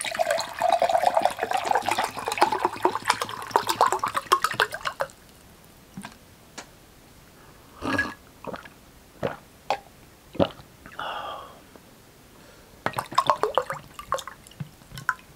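Water poured from a plastic bottle into a glass mug, splashing, with a tone rising in pitch as the mug fills, for about five seconds; a few scattered clicks and taps follow, then a second short pour near the end.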